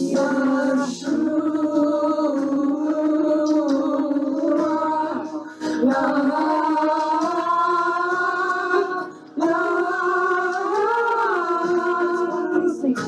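Worship song being sung: voices hold long, slowly gliding notes in drawn-out phrases that break briefly about a second in, near six seconds and just after nine seconds.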